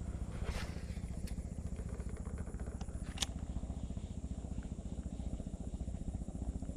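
A small engine running steadily at an even speed, with a few sharp clicks over it, the loudest a little over three seconds in.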